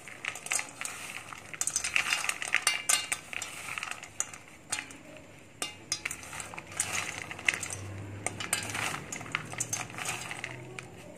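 Roasted peanut pieces rattling and scraping against a stainless steel bowl as a hand tosses and mixes them with peanut powder and chopped dates: an uneven run of small clicks and rustling.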